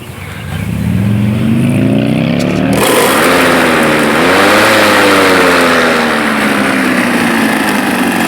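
Black and Decker electric lawn mower motor switched on, its whine rising in pitch over about two and a half seconds. It then runs steadily with a loud rush of air from the spinning blade.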